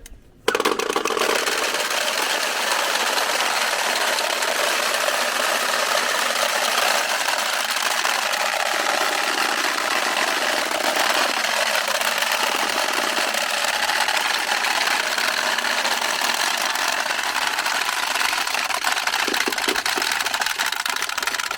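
Many hand-swung wooden Easter rattles (ratchet clappers) clattering together in a dense, continuous wooden racket, starting about half a second in. The rattling stands in for the silent church bells, calling the village to noon prayer.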